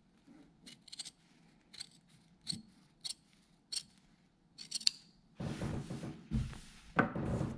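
Large tailor's shears cutting through jacket canvas, a crisp snip every half second to a second for about five seconds. Then rustling and handling of the cloth, with a couple of soft thumps, as the jacket front is moved on the table.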